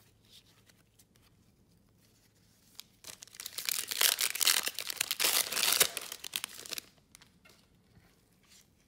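Wrapper of a 2020 Topps Star Wars Holocron trading-card pack being torn open and crinkled: a loud stretch of tearing and crinkling starting about three seconds in and lasting about four seconds. Soft shuffling of cards comes before and after it.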